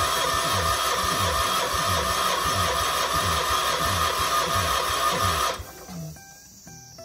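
Kohler K241S single-cylinder engine cranking on its electric starter without firing, with a regular chug about two to three times a second. It cranks but does not catch for lack of spark, from corroded, gummed-up ignition points. The cranking stops suddenly about five and a half seconds in, and quiet guitar music follows.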